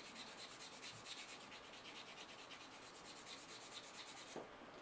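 Sanding stick rubbed in quick, even back-and-forth strokes over a small plastic model exhaust pipe, giving a faint, fast scratching rhythm that stops a little before the end.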